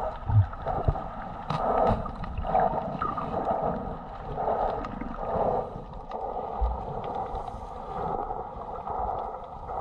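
Muffled underwater sound through a submerged action camera: water sloshing and gurgling in swells about once a second, with two dull low thumps.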